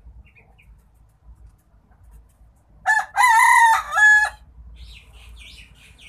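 A rooster crows once, about three seconds in, a loud multi-part crow lasting about a second and a half. Faint high bird chirps follow it.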